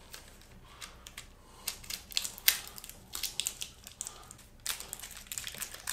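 Packing tape crinkling and crackling in short, irregular crackles as it is pulled and pressed down by hand over a case saver on a motorcycle engine case.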